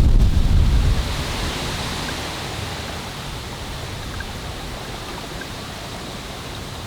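Steady rush of water from a mountain stream and waterfall, with a louder low rumble in the first second.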